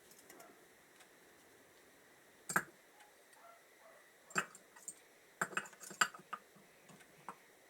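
Small metal carburettor parts and tools clicking and clinking as they are handled and set down during reassembly: one sharp knock about two and a half seconds in, then a run of clicks from about four to six seconds, and a last click near the end.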